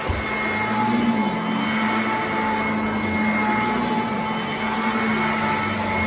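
Sanitaire commercial upright vacuum cleaner running on carpet: a steady motor whine with a hum underneath, its pitch wavering slightly as it is pushed back and forth.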